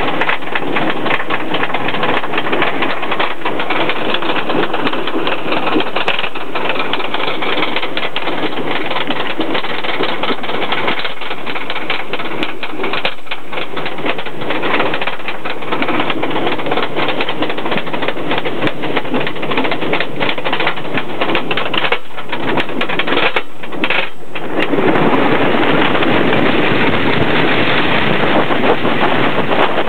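Intamin wooden roller coaster train being hauled up the chain lift hill, with a rapid, continuous clatter from the lift chain and anti-rollback ratchet. About 24 seconds in the clicking stops and gives way to a steady, louder rush of wind on the microphone as the train crests and picks up speed.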